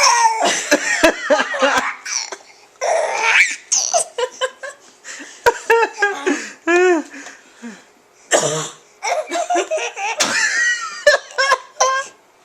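A woman coughing and a baby laughing at it. Loud coughs come at the start and again about eight seconds in, with runs of short, high, bouncing laugh syllables between and after them.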